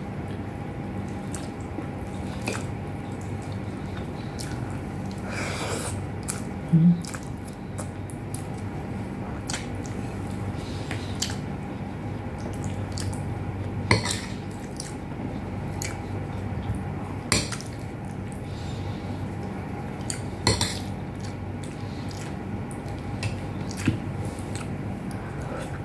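Eating at the table: a metal spoon and fingers clinking and scraping on plates, with scattered sharp clicks, over a steady low hum. A brief low thump about seven seconds in is the loudest sound.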